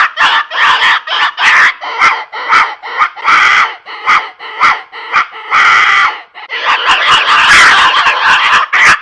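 A pig call blown into cupped hands, imitating pig squeals. It gives short squealing cries several times a second, then a longer, nearly unbroken run of squealing from about six and a half seconds in.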